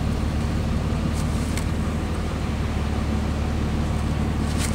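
Pickup truck driving slowly through deep floodwater, heard from inside the cab: a steady low engine hum over the even wash of water and tyres.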